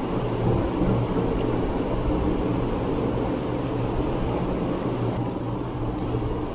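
Electric fan running with a steady low hum.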